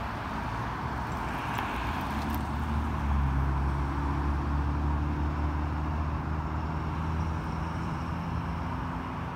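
A vehicle engine runs with a steady low hum over a hiss of road noise. The hum grows louder about three seconds in and eases after about seven seconds, without changing pitch.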